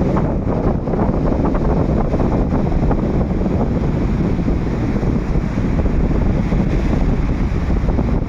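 Strong wind buffeting the microphone, a loud, steady rumble without a break.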